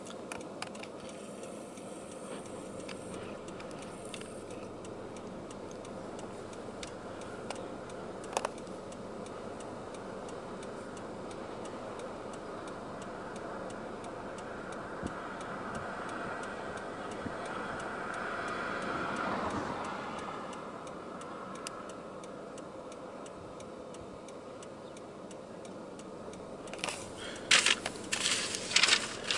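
Steady background noise inside a stopped car, with a faint regular ticking throughout. A swell of noise rises and fades about two-thirds of the way through. Near the end come loud knocks and rustling as the handheld camera is moved against the car's window frame.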